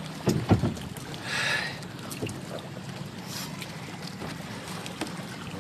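Small fishing boat on the water: a steady low rumble, a couple of sharp knocks near the start, and two short splash-like hisses, about one and a half and three and a half seconds in.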